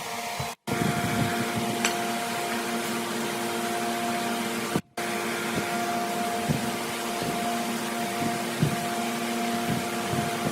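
An electric motor running steadily with a hum, broken by two brief gaps of silence.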